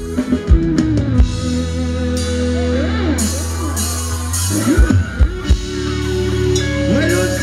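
Live band playing Thai ramwong dance music. There are sharp drum hits in the first second and again about five seconds in, over a steady low bass, with gliding notes in between.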